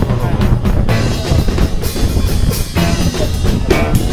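Music with drums, loud and dense throughout.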